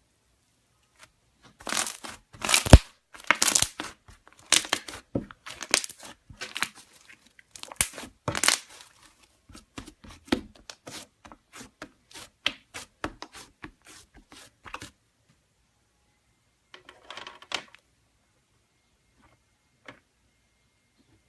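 Slime being squeezed and pulled by hand, making a run of crackling pops and snaps. The pops come thick and fast for several seconds, thin out to scattered clicks, then stop, with one more short crackle near the end.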